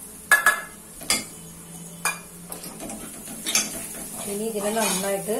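Metal spoons clinking and scraping against a metal cooking pot as a crushed shallot and chilli mix is stirred, with several sharp clinks spread over the first few seconds.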